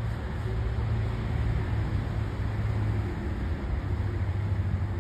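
Steady low rumble with an even hiss: outdoor background noise with no distinct event in it.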